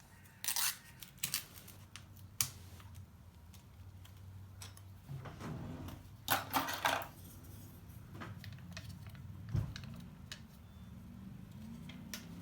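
Light handling sounds: scattered clicks and a few short rustling or scraping noises over a low steady hum.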